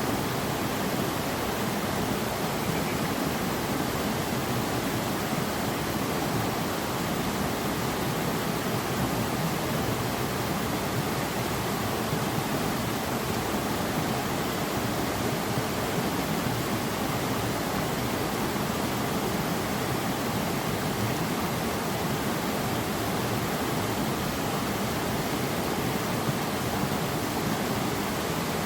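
Steady, unbroken rush of flowing water, with no change in level or character.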